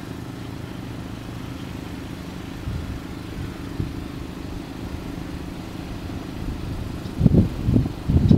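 Quad-turbo 454 V8 on an engine dyno, running naturally aspirated: a steady idle, with a few short, loud blips of the throttle near the end.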